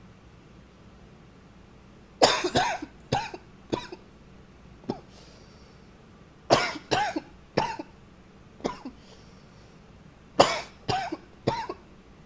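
A man coughing close to the microphone in three fits of three or four coughs each, a few seconds apart, with a single fainter cough between the fits.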